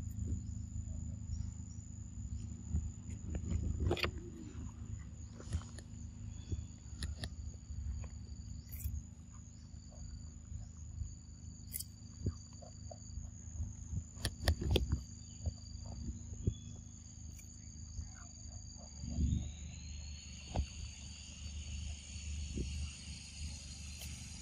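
Forest insects keep up a steady high drone, over a low rumble. Scattered sharp clicks and crunches come as macaques bite and chew pieces of cucumber.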